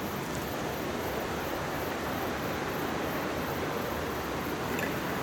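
Steady rush of running water, rinsing soap suds out through a sieve.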